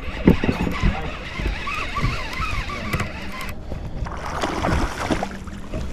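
Wind buffeting the microphone and water slapping against the hull of a small fishing boat, over irregular low thumps, while a lure is cast and retrieved on a baitcasting reel.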